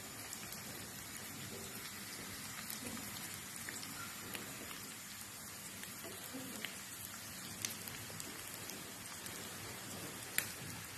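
Sliced potatoes and onions sizzling in hot oil in a frying pan: a steady crackle with scattered small pops, one sharper pop near the end.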